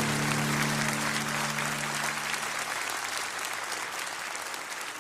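Audience applauding at the end of a live song, while the song's final chord rings out and dies away about three seconds in. The applause fades steadily down.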